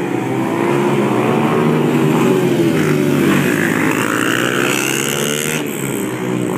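Several small dirt bike engines running and revving, their pitch rising and falling. A Honda CRF150F's single-cylinder four-stroke passes close, louder about four to five seconds in.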